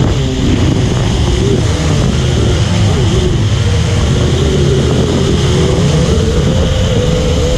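Quadcopter drone's rotors humming, the pitch wavering up and down as the motors speed up and slow, over heavy wind rumble on the microphone.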